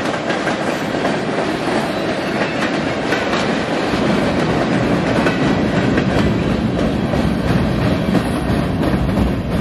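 Empty centerbeam flatcars of a freight train rolling past close by: a steady rumble of steel wheels on rail, with clicks as the wheels cross rail joints and the low rumble growing about halfway through.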